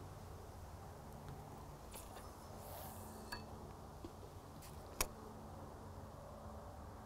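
Quiet riverbank with a steady low hum and a few light clicks from a feeder rod and spinning reel being cast and handled; the sharpest click comes about five seconds in.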